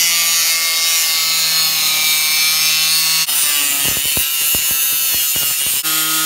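Corded angle grinder with a cutting disc cutting through a car's sheet-steel front fender, a loud steady high-pitched whine with grinding hiss. The pitch shifts abruptly about three seconds in and again near the end, with a few low knocks in between.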